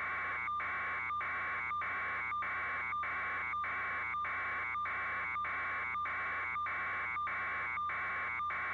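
Steady electronic buzzing with a fixed tone, broken by short regular gaps almost twice a second.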